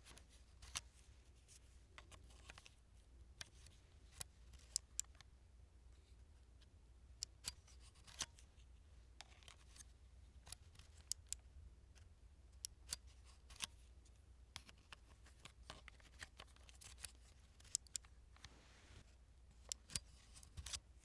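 SD memory card being repeatedly inserted into and ejected from a card reader slot: small sharp plastic clicks, often in quick pairs, every second or so.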